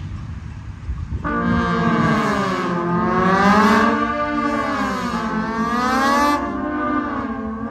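A section of trombones comes in together about a second in, playing a sustained chord that slides up and down in pitch in smooth glissandi, all the voices moving as one. They break off briefly near the end.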